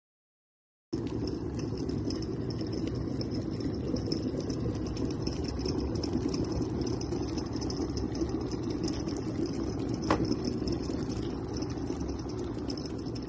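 Stainless steel electric kettle heating water toward the boil, a steady rushing, bubbling noise that starts abruptly about a second in. A brief click comes about ten seconds in.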